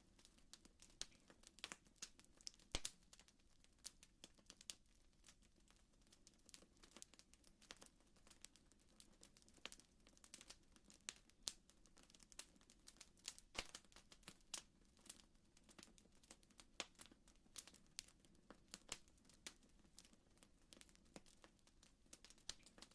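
Faint crackling of a wood fire: irregular sharp pops and snaps, several a second, with no steady tone beneath.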